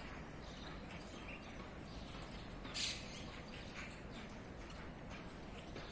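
Faint outdoor ambience with small birds chirping faintly now and then, and one short, sharp noise about three seconds in.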